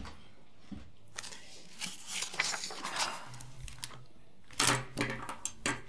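Handling noises of small objects on a table: a leather pouch and headphones being picked up and moved. There is a patch of rustling about two seconds in, then a quick run of clicks and rustles near the end.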